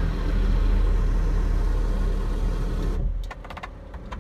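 Submarine's motor running with a steady low rumble as it turns, cutting out about three seconds in, followed by a few sharp clicks.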